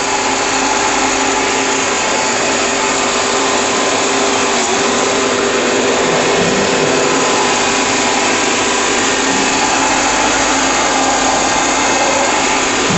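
Electric cone grinder (peanut butter mill) running steadily, its rotating cone crushing roasted peanuts into paste. An even, unbroken whir with a steady motor hum.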